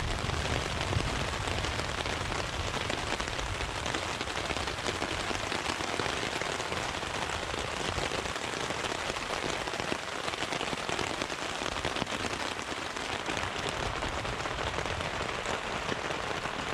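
Steady rain falling on a tent, heard from inside it: rain from a thunderstorm passing overhead.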